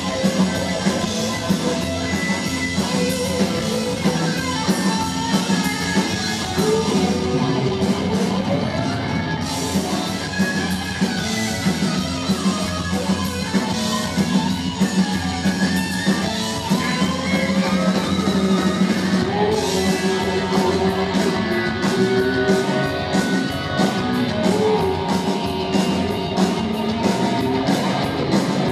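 Punk rock band playing live: electric guitar, bass and drums going on without a break, with a sung vocal line over them at times.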